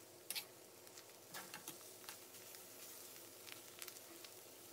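A few faint scrapes and taps of a metal spatula against a steel wok as egg and fermented pork are tossed and stir-fried, over a faint sizzle.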